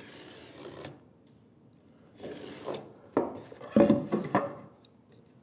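A marking knife scoring across a wooden board against a square, cutting a knife wall: a scratchy stroke at the start and another about two seconds in. Then come several sharp wooden knocks as the board and square are handled on the bench.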